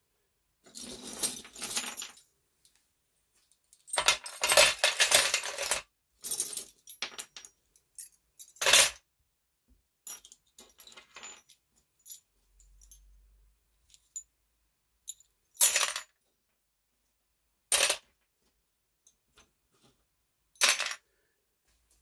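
Short pieces of scrap copper tubing clattering into a bowl, dropped in by the handful in several bursts of rattling metal. Near the end, three single pieces land on their own, a couple of seconds apart.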